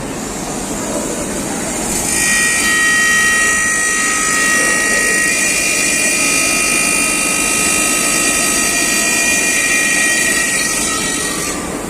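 Speed treadmill motor running at high speed, a steady mechanical whine with several high tones over a rushing noise. The whine sets in about two seconds in and eases near the end. The noise comes from what the owner calls an internal fault in the motor.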